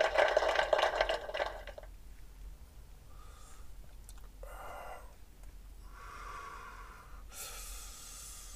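A person smoking close to the microphone: a loud hissing draw that fades out about two seconds in, then a few softer breaths in and out, ending with a long breathy exhale.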